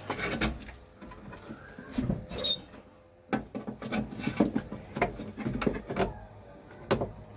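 Irregular small clicks, taps and scrapes of parts and tools being handled while working inside a car door, with one sharp metallic clink about two seconds in.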